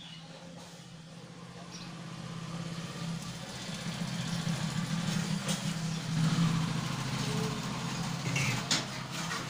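A low, steady engine hum that grows louder over the first few seconds and holds, with a few small clicks near the end.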